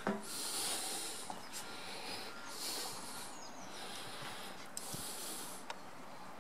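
Close breathing at the microphone: three hissing breaths about two seconds apart, with a few faint clicks and knocks in between.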